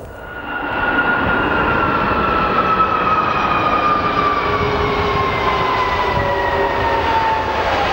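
Jet airliner engines: a loud rushing roar with a high whine that falls slowly and steadily in pitch.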